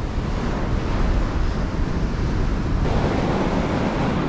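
Surf breaking and washing up the beach, with wind rumbling on the microphone. About three seconds in, the wash of the surf grows louder.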